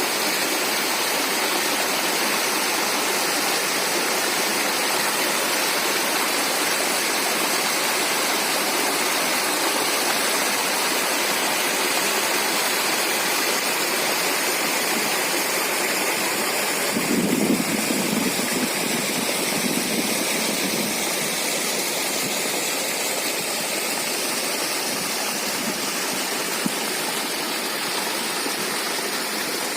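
River water rushing steadily. From about 17 seconds in, a brief louder low rumble rises over it for a few seconds.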